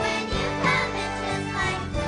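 Children's choir singing a song together over an instrumental accompaniment.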